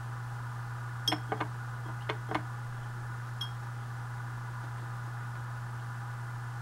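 A paintbrush tapping against hard containers while watercolour is rinsed and loaded: about five light clicks in quick succession starting about a second in, then one faint tick, over a steady low hum.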